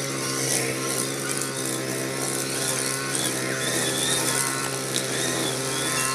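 Mitsubishi backpack brush cutter with a single nylon trimmer line, its small engine running at a steady speed while it cuts grass.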